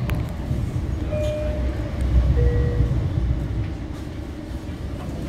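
Low, steady running rumble of a Long Island Rail Road M7 electric multiple-unit car, heard from inside the car as the train travels along the line. Two brief tones sound about a second apart, the second lower than the first.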